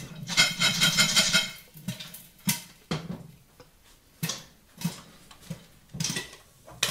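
A metal pot of popcorn shaken on a glass-ceramic hob, scraping and rattling for about a second, then single kernels popping inside the lidded pot every half second or so as the popping dies down.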